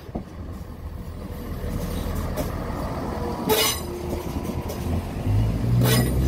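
Class 171 Turbostar diesel multiple unit rolling past at close range, its wheels knocking twice over rail joints. Near the end its underfloor diesel engine note rises as the unit powers up.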